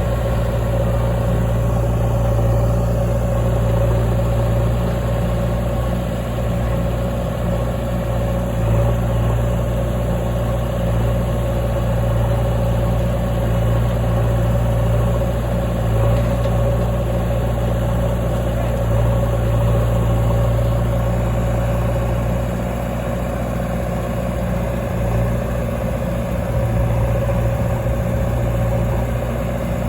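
Heavy diesel engine running steadily at a constant speed, with a low even drone throughout.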